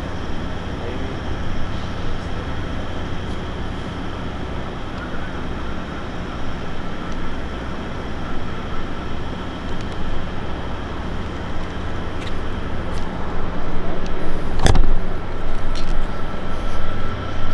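Steady motor-vehicle and road traffic noise with a low engine hum, getting louder over the last few seconds. A single sharp knock about fifteen seconds in.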